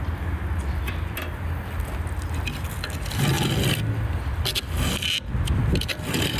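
Flat steel lid plate scraping and clanking as it is pushed with a wooden stick across the rusted steel top of a fire cooker to cover the hole, louder from about three seconds in. Under it there is a steady low rumble.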